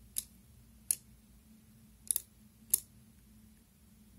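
Soroban (Japanese abacus) beads flicked by a finger, clicking against the frame: four short, sharp clicks spaced out over a few seconds, the third a quick double click.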